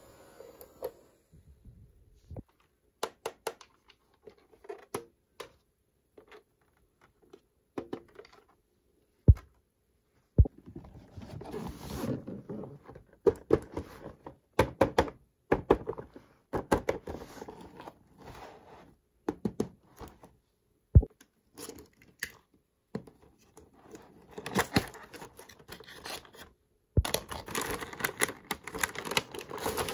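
Small plastic toy pieces and their packaging being handled: scattered clicks and knocks, with stretches of crinkling and tearing.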